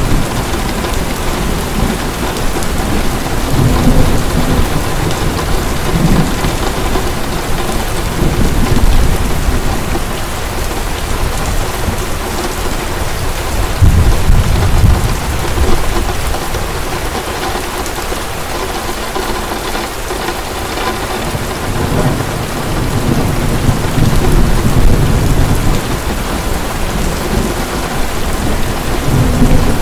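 Heavy rain falling steadily, with thunder rumbling low several times as it rolls in and fades.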